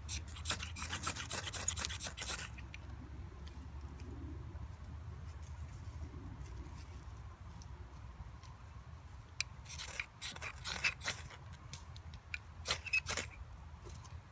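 Knife blade scraped along a ferrocerium fire steel in rasping strokes: a quick run of strokes about a second in, then short bursts of strikes near the end that light a dry bark tinder nest. Faint rustling of tinder in between.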